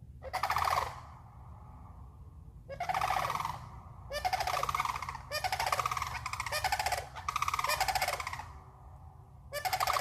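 Sandhill cranes calling in a series of loud, rapidly pulsed bugling calls, about six bouts with short pauses between them, echoing.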